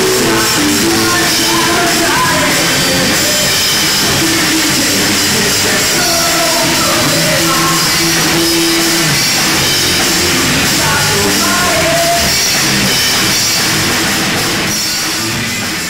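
Live punk rock band playing loud, with electric guitars and a drum kit; the sound fades out near the end.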